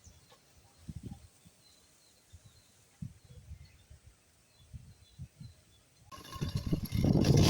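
Gusty wind buffeting the microphone in low, uneven thumps, with faint bird chirps. About six seconds in, a louder rushing noise swells up.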